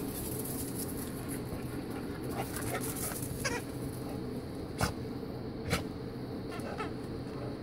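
A young pit bull playing with a toy on the ground: a few short, high squeaky sounds and several sharp clicks over a steady low background.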